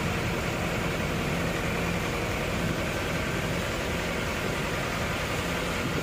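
Steady engine and road noise heard from inside a moving vehicle's cab, driving on a wet highway.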